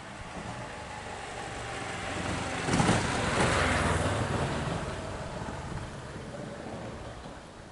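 A road vehicle passing by: its noise swells to a peak about three seconds in, then fades away.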